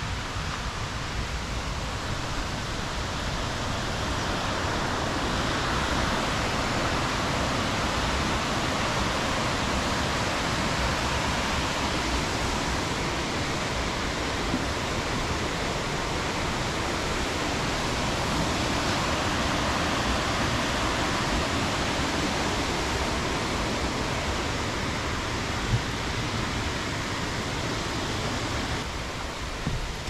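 Steady rush of a waterfall and its rapids, swelling slightly about four seconds in as it comes nearer, then holding even.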